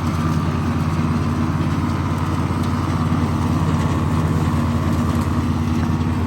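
John Deere riding lawn mower running steadily with its blades engaged, cutting grass: a low, even engine hum with a steady whine above it.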